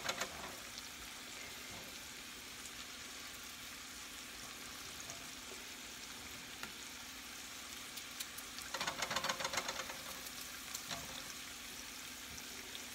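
Chicken sizzling steadily as it fries in a skillet. About nine seconds in comes a short run of quick clicks as a knife slices potatoes against the stovetop.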